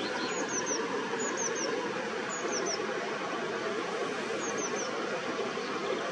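Black redstart calling: groups of three very short, high, down-slurred notes, four groups in a few seconds, over a steady, even rushing background noise.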